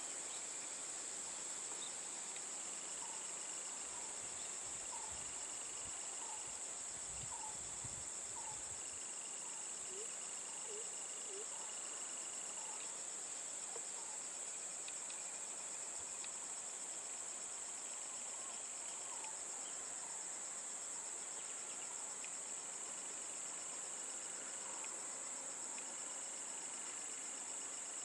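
Steady, shrill chorus of insects, with short bird chirps repeating now and then over it.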